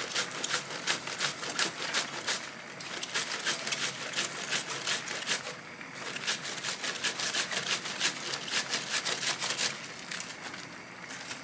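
Cabbage being shredded on a small handheld cabbage slicer, several crisp scraping strokes a second as the cabbage is pushed back and forth over the blade, with a few brief pauses.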